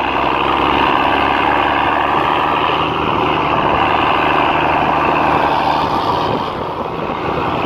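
Mercedes-Benz Unimog truck on the move, its diesel engine running steadily, heard from the open rear cargo bed.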